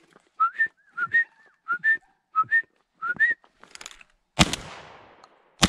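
A run of short whistled notes, each rising in pitch and coming in quick pairs, is followed by two shotgun shots a little over a second apart. Each shot is loud and leaves a rolling echo.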